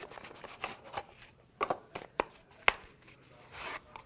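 Small cardboard box being opened and a PoE power injector taken out of it: a few sharp taps and clicks, then a brief sliding rustle near the end.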